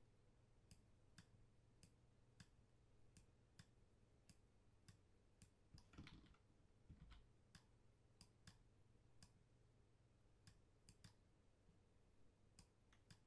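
Faint computer mouse button clicks, about twenty of them at irregular spacing, as edge loops are placed one by one in a 3D modelling program. A short rustle about six seconds in.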